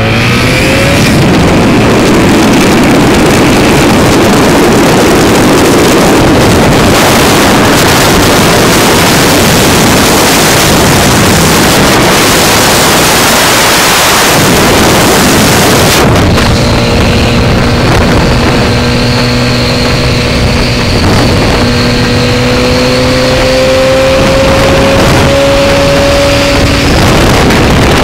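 Wind buffeting the microphone on a Honda motorcycle moving at road speed, over the engine's steady running. About two-thirds of the way through, the wind drops back and the engine hum comes through plainly, its pitch slowly rising as the bike gains speed to about 70 mph, then sinking back under the wind near the end.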